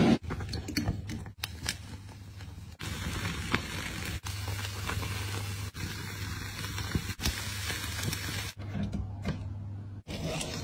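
Skewered beef slices sizzling over flames on a bed of burning salt in a clay pot, a steady hiss with light crackling. It breaks off abruptly and starts again several times, over a constant low hum.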